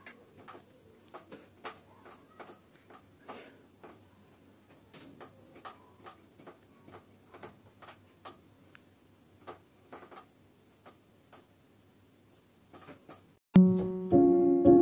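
Faint, irregular clicks and taps, one to three a second, over a quiet room hiss. Near the end, music with plucked, piano-like notes starts suddenly and is the loudest sound.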